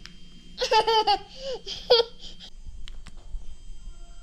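A young child laughing: a high-pitched, wavering burst of giggles about half a second in, lasting about a second and a half.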